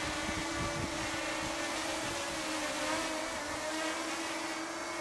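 DJI Mini 4K quadcopter hovering close by, its propellers giving a steady whine that holds nearly one pitch, wavering slightly as it turns.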